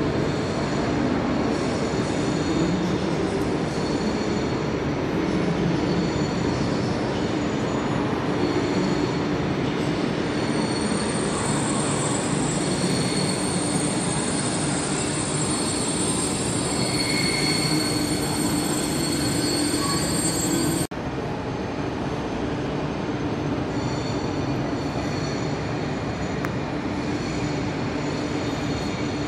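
Train rolling slowly through station tracks, heard from on board: a steady rolling rumble, with the wheels squealing in high ringing tones for about ten seconds through the middle.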